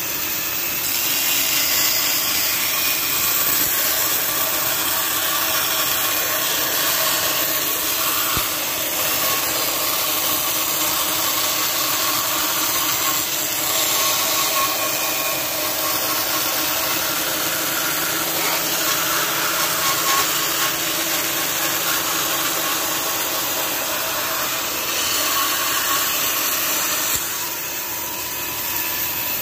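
Band saw running and cutting lengthwise through a wooden strip: a steady motor tone under the rasp of the blade in the wood, louder from about a second in and dropping off near the end.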